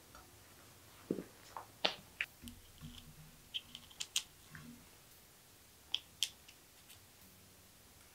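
Irregular light clicks, taps and small knocks of bicycle parts and hand tools being handled at a workbench, bunched together over the first six seconds or so.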